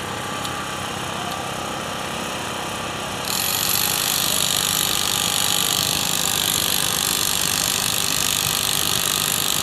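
Construction machinery running steadily with a mechanical drone. About three seconds in, a louder, hissier machine noise cuts in and keeps going.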